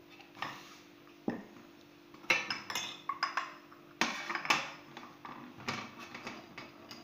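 Porcelain cup and saucer clinking against each other and against a metal serving tray as they are handled and set down: a run of sharp clinks, bunched about two seconds in and again around four seconds, with lighter taps after.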